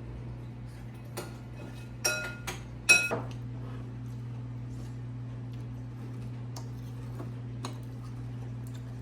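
Hard household items clinking and knocking as they are handled and set down, with a cluster of ringing clinks about two to three seconds in, then a few faint ticks, over a steady low hum.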